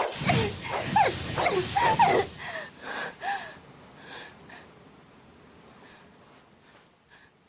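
A woman panting and gasping hard, with short voiced gasps, loud for about the first two seconds, then easing to softer breaths that die away about halfway through.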